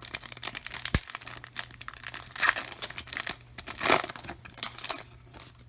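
Trading card pack wrapper being torn open and crinkled, an irregular crackling that peaks twice and dies away near the end, with a single light knock about a second in.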